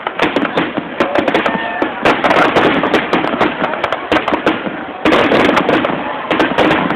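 Fireworks going off in rapid succession: dense crackling and bangs, with a fresh, louder salvo about five seconds in.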